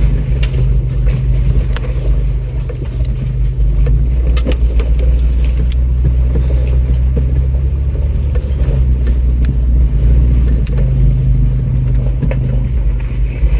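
Off-road truck's engine running low and steady while crawling along a rough trail, with scattered knocks and rattles from the body and suspension over the ground.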